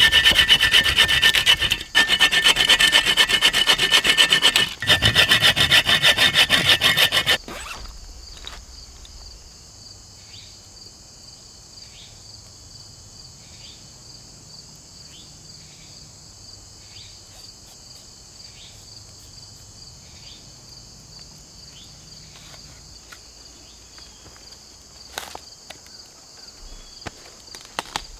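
Hand saw cutting through a small branch with fast back-and-forth strokes, in three runs with two short pauses, for about seven seconds before it stops.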